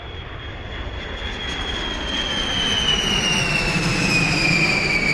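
Jet airliner taking off: a rumble that grows steadily louder, with a high engine whine that slowly falls in pitch.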